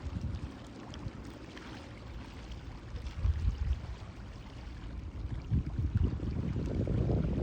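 Sea water washing, with wind rumbling on the microphone; the rumble swells in gusts and grows louder near the end.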